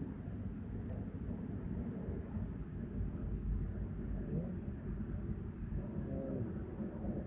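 Quiet outdoor ambience: a steady low rumble with faint, irregular high-pitched chirps.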